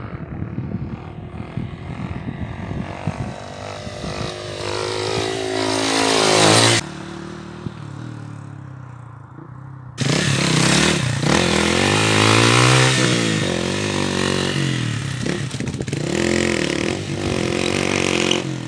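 Single-cylinder 150 cc motorcycle engine (Falcon Mexico 150) accelerating, its pitch rising steadily for several seconds before cutting off suddenly. Then, about ten seconds in, it is revved up and down again and again as the bike pulls away at low speed.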